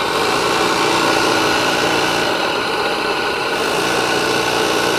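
Single-cylinder live-steam engine of a hand-made model speed boat running fast, a loud, steady rushing hiss.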